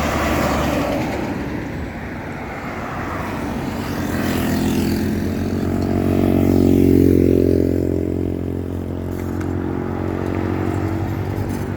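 Vehicle driving on a road: steady engine and road noise, with an engine growing louder to a peak about seven seconds in, then easing off.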